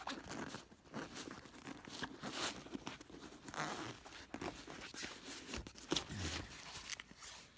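Irregular rustling, scraping and crinkling of tools and small items being handled and moved in a tool box drawer.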